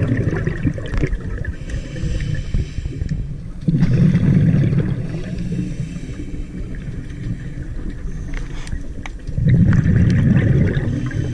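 Scuba diver's regulator breathing heard underwater: loud, low gushes of exhaled bubbles at the start, about four seconds in and again near the end, with quieter stretches between.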